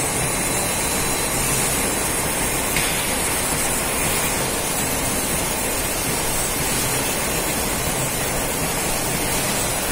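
Steady running noise of a packaged drinking water production line: machinery running with a constant hiss, unchanging and without a rhythm.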